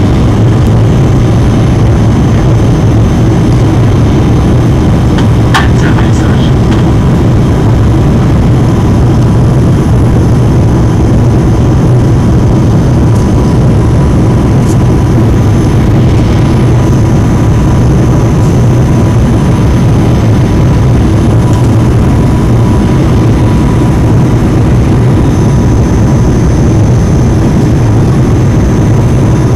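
Airliner cabin noise in flight on approach to landing: a loud, steady low drone of the jet engines and rushing air, with a thin steady whine over it. A brief click about five and a half seconds in.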